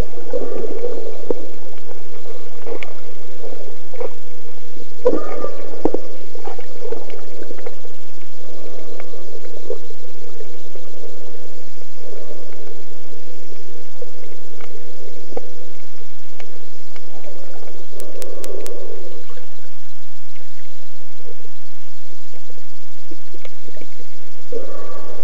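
Muffled water sloshing and bubbling picked up by a camera held underwater, with scattered small clicks and a few stronger surges of bubbles.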